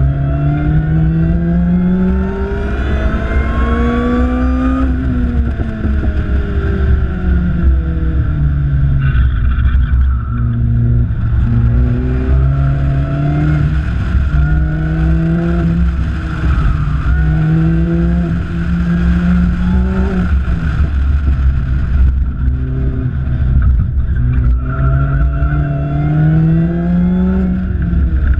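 Lotus Exige S240's supercharged four-cylinder engine pulling hard on track laps. It climbs in pitch again and again under acceleration and drops back as the car slows for corners, over a steady rush of wind and road noise.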